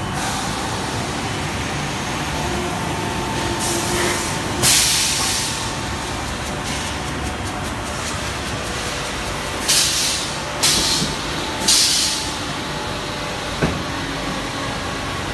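EPP shape moulding machine running with a steady mechanical noise, broken by short hisses of venting from its valves: two about four to five seconds in and three in quick succession later on. A single sharp click follows near the end.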